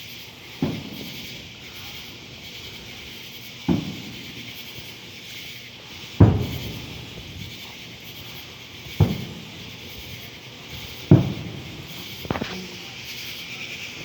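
Distant fireworks shells bursting: about six booms spaced two to three seconds apart, each trailing off in an echo, over a steady high hiss.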